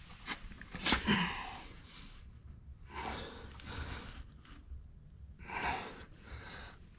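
Several breathy puffs of air close to the microphone: a person blowing on newly lit kindling in a wood stove's firebox. A sharp knock comes about a second in.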